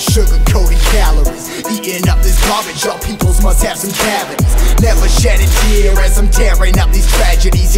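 Hip hop music with deep bass hits that slide down in pitch, about one every second or so.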